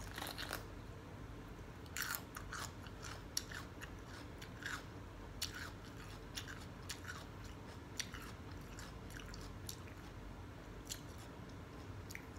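A person biting and chewing a raw sweet mini bell pepper: irregular crisp crunches, closest together a couple of seconds in and thinning out after that.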